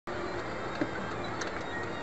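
Steady road and engine noise inside a moving car, with faint music playing, and one brief tap just under a second in.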